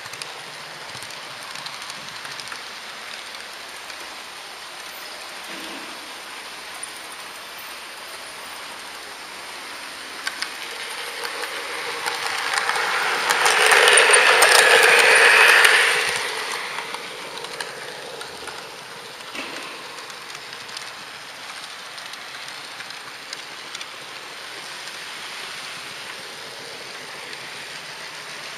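HO-scale model train running along the track: a steady mechanical rattle with scattered light clicks. About halfway through, a second model train passes on the adjacent track. The noise swells to much louder for a few seconds, then fades back.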